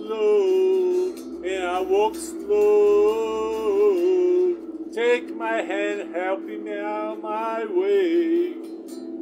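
A man's voice singing long held notes, bending from one pitch to the next, over a strummed electric guitar.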